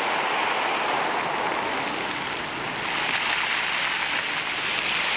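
Waves breaking and washing up a shingle beach, a steady rush of surf that swells louder about three seconds in.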